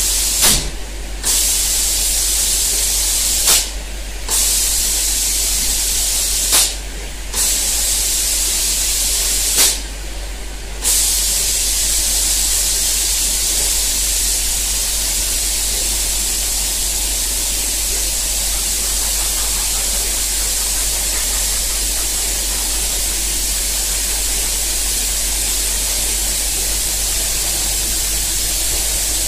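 Air spray guns of an automatic painting machine hissing as they spray. The spray cuts off briefly four times in the first ten seconds or so, each time starting again with a sharp edge, and then runs on without a break.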